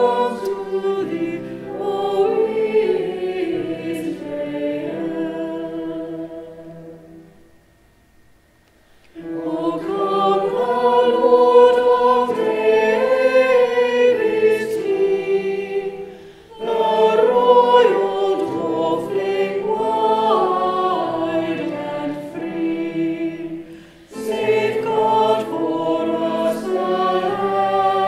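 Girls' choir singing a carol in phrases, with a short pause between phrases about eight seconds in.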